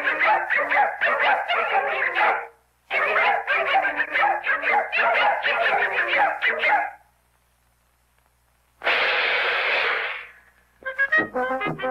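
Cartoon puppy's voice effect: two runs of rapid, high-pitched yapping cries with a short break between them. After a pause comes a burst of rushing noise lasting about a second and a half, and brass band music starts near the end.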